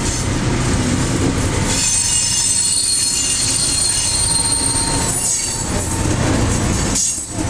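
Loram rail grinder train passing at close range: a loud, steady rumble of steel wheels on rail. From about two seconds in, several high-pitched squealing tones ring above it, then fade, and there is a brief dip in the sound near the end.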